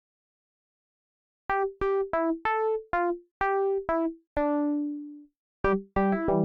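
A GarageBand electronic track starts after a second and a half of silence. A synth keyboard plays a melody of short plucked notes with one longer held note near the middle. After a brief gap, a lower line joins near the end.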